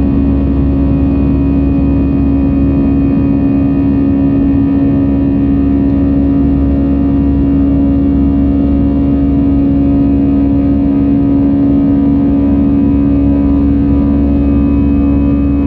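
Airbus A320's CFM56 turbofan engines at climb power after takeoff, heard from inside the cabin over the wing: a steady, loud drone with a strong constant hum over a low rumble.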